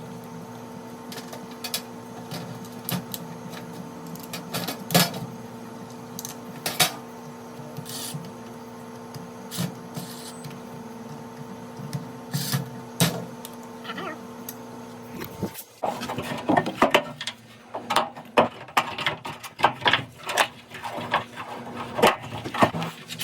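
Samsung front-load washer's drain pump humming steadily with light clicks, then cutting off suddenly about fifteen seconds in, followed by a run of sharp knocks and clatter of parts being handled.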